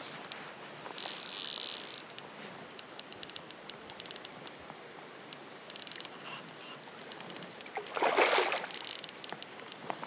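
Handling noise from an angler working a fly rod and line: scattered sharp clicks and two short rushes of noise, a hissy one about a second in and a louder, fuller one near the end, over a steady faint outdoor hiss.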